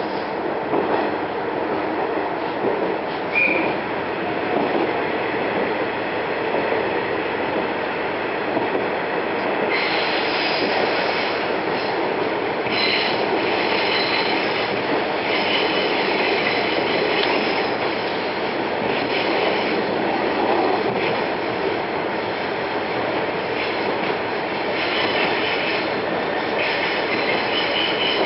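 Diesel railcar running along the line, heard from inside: a steady rumble of wheels on rail, with high wheel squeal coming and going from about ten seconds in.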